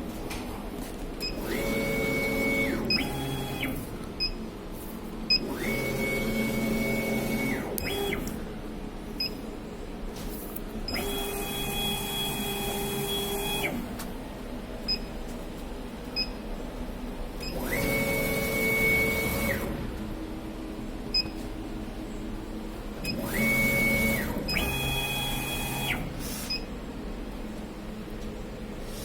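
Stepper motors of a two-head laser cutting machine driving the heads in a series of moves: each move is a whine that glides up in pitch, holds steady for one to three seconds, then glides down and stops, with short pauses between moves. Faint ticks and a steady machine hum run underneath.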